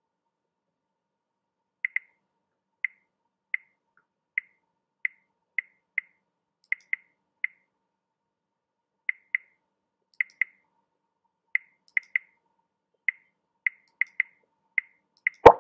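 Short, light clicks start about two seconds in and come irregularly, some in quick pairs, about twenty in all. Just before the end comes one loud, sharp hit.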